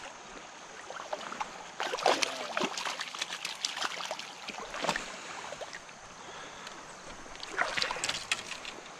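A landed brown trout flapping and splashing in shallow water at the stream's edge as it is grabbed by hand, in several sharp splashes over the steady rush of a flowing stream.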